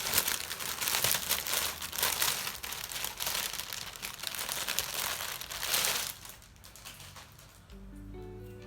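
Packaging crinkling and rustling as a newly delivered tote bag is unwrapped by hand, dying away about six seconds in.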